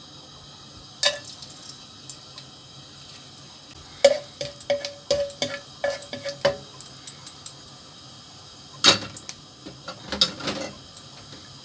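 Wooden spatula knocking and scraping against a non-stick kadai while stirring whole spices in oil. The taps come unevenly, a cluster about a third of the way in and more near the end, some with a short ringing tone from the pan.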